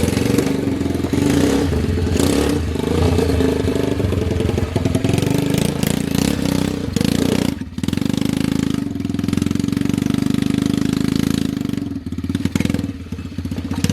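The 125 cc motorcycle engine of a homemade mini 4x4 rock crawler running under way, its pitch rising and falling as the throttle is worked, easing off briefly about halfway through and again near the end.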